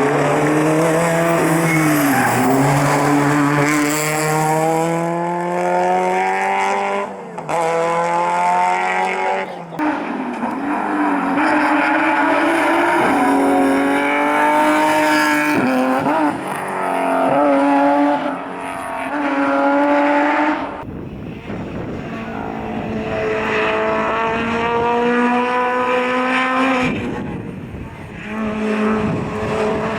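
Rally car engines at full throttle on a stage, the pitch climbing through each gear and dropping at the shifts, with tyre squeal. The sound changes suddenly several times as one car gives way to another.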